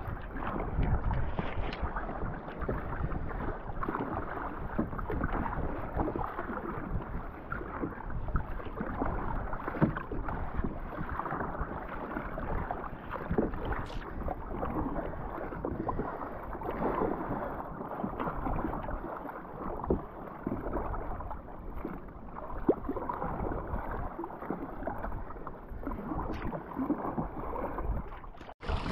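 Sea water sloshing and splashing against a kayak's hull, irregular and restless, with scattered small knocks.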